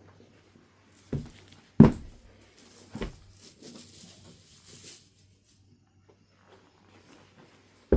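Knapping on a piece of Knife River flint: a few sharp knocks of tool on stone, the loudest about two seconds in, with a stretch of gritty scraping between about two and five seconds.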